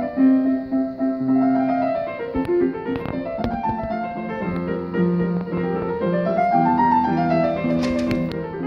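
Two grand pianos playing a duet together: scale-like runs that rise and fall over held lower notes. A few short sharp clicks sound near the end.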